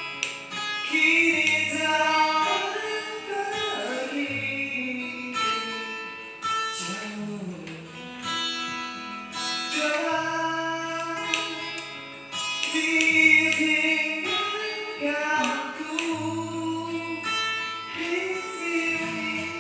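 A man singing a slow song with long held notes, accompanied by acoustic guitar, with low notes held underneath.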